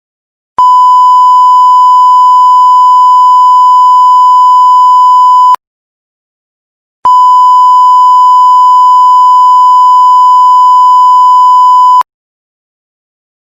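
Censor bleep sound effect: a loud, steady, single-pitch beep tone. Two long beeps of about five seconds each, separated by about a second and a half of silence.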